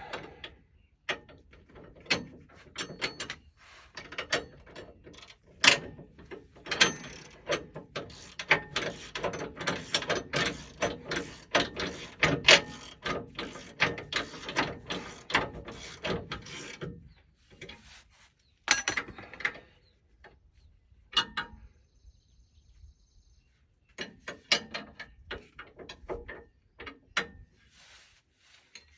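Hand ratchet wrench clicking in rapid runs, with pauses, as bolts on a driveshaft safety loop bracket are run down.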